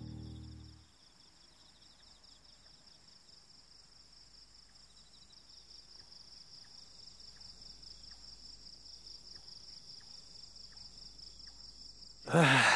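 Crickets chirping in a steady, fast-pulsing high trill. The last notes of an acoustic guitar fade out in the first second, and a voice begins near the end.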